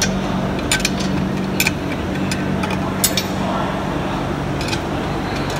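Hand ratchet working the mounting nuts off a truck air-suspension bag: a few sharp metallic clicks spaced a second or so apart, over a steady low hum.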